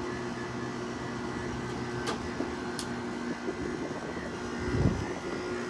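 Haier 5,200 BTU window air conditioner running: a steady hum from the compressor and fan. A couple of faint clicks and a dull thump come late on.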